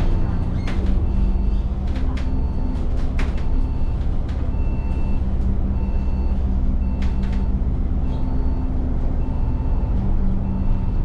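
An Alexander Dennis Enviro400 double-decker bus heard from on board as it drives, its diesel engine running steadily with a low rumble. Scattered sharp rattles and clicks come from the bus interior.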